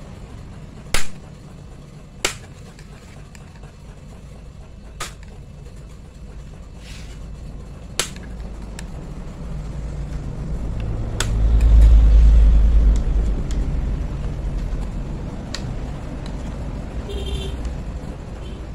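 Several sharp plastic clicks, spaced a few seconds apart, as the snap clips of an Acer laptop's plastic hinge cover and screen bezel pop loose under a metal pry scraper. Under them runs a low rumble that swells about halfway through.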